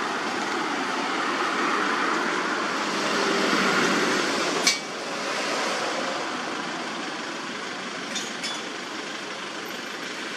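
Steady outdoor rushing noise that swells over the first four seconds and eases off after a single sharp click; two fainter clicks follow near the end.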